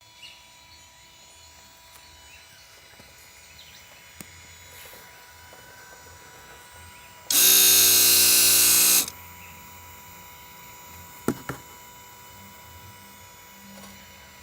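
Toyota Aqua's brake accumulator pump motor running for about two seconds with a loud, steady buzz, then stopping abruptly; two sharp clicks follow a couple of seconds later. The pump is switching on more often than normal, which the owner puts down to tiny leaks in the accumulator pressure tank letting the pressure fall, the onset of accumulator failure.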